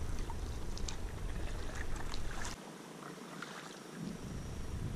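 Wind rumbling on the microphone over small splashes and drips from a canoe paddle. The wind rumble drops out for over a second just past the middle, leaving only the light water sounds.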